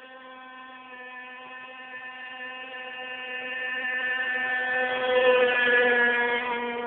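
Radio-controlled speedboat's motor running at a steady high pitch, growing steadily louder as the boat approaches and loudest about five seconds in, with the pitch dropping slightly as it passes by.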